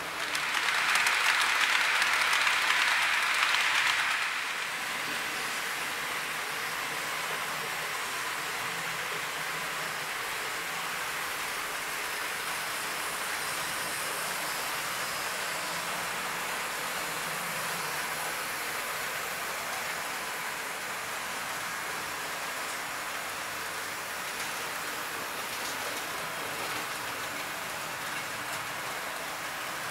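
Model trains rolling along the layout track: a steady rushing rattle of small wheels on the rails, louder for the first four seconds.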